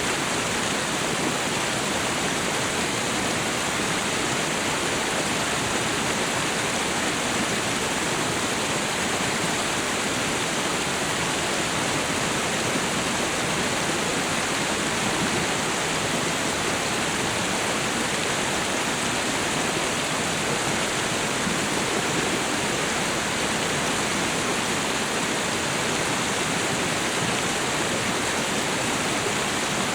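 Waterfall and river water rushing in a steady, unbroken roar of white noise, even and unchanging throughout.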